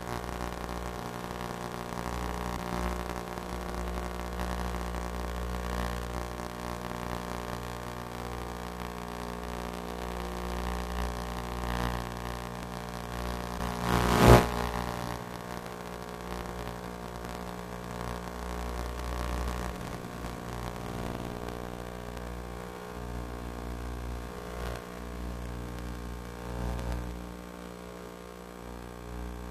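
Electric motor and propeller of an FPV model plane running steadily in flight, a constant hum with wind rumble under it, and a single sharp crack about halfway through.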